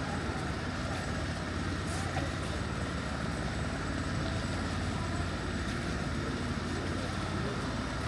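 Steady city-street ambience: traffic running, with faint voices in the background.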